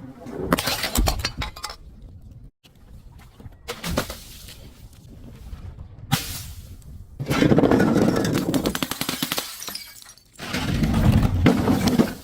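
Glass breaking and shattering in several separate crashes, with crunching. The two longest and loudest stretches come about midway and near the end.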